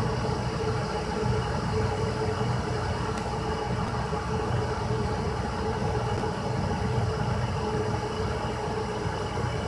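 Glass electric kettle heating water, a steady rumble as small bubbles form on the heating plate, not yet at the boil.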